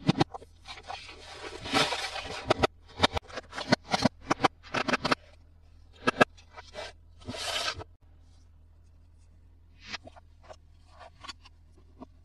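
Toys and their packaging being handled: a quick run of short scrapes, crinkles and clicks that thins out after about eight seconds to a few faint taps, over a steady low hum.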